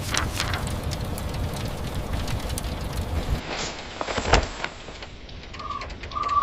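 Rain and wind ambience: a steady low rumble with scattered crackling drops, and a sharp crack about four seconds in. Near the end, a bird starts giving short whistled notes at one steady pitch, a bit more than one a second.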